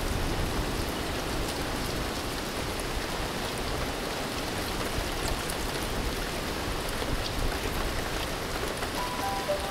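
Steady rain falling, an even hiss with scattered soft drop ticks. Near the end, a few held music notes begin to come in.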